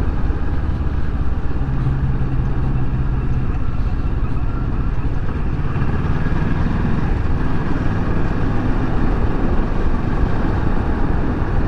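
Kawasaki Versys 650's parallel-twin engine running as the motorcycle is ridden, under a heavy rumble of wind on the microphone. A steady engine note stands out for a couple of seconds about two seconds in.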